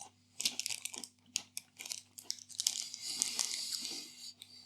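Plastic snack packet being handled and crinkled: scattered sharp crackles, then a denser burst of crinkling for a couple of seconds past the middle.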